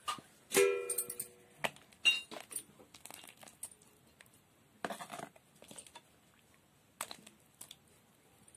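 Scattered clinks and knocks of metal cookware. About half a second in, one louder strike rings on a steady pitch for most of a second.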